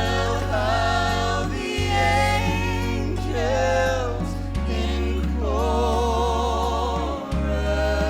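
Recorded gospel hymn playing: a woman singing held, wavering notes with vibrato over a steady low bass accompaniment.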